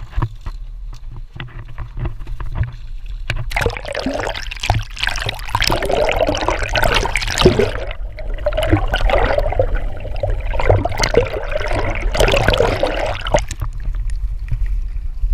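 Sea water sloshing, gurgling and rushing over an action camera as it is dipped into the ocean, starting about three seconds in and going on in irregular surges, over a low steady rumble.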